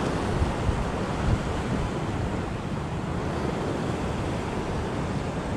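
Ocean waves washing in, with wind on the microphone: a steady rushing noise with no separate events.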